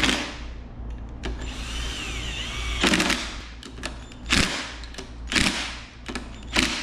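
Handheld electric power tool running in short spurts, its motor whine rising and falling, then four brief loud bursts about a second apart.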